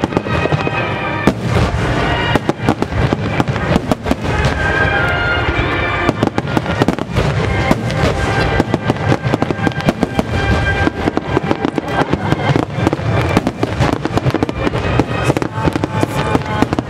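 Barrage of aerial firework shells bursting in rapid succession, dense overlapping bangs and crackles throughout, with music playing alongside.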